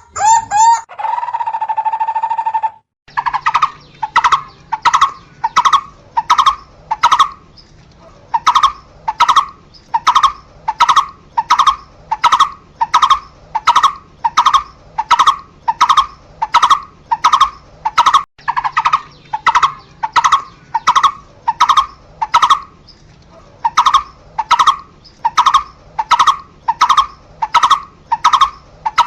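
A barbet calling a long series of short notes, evenly repeated about twice a second, starting about three seconds in and pausing briefly near the middle. A steady whistle-like tone holds for the first few seconds before the calls begin.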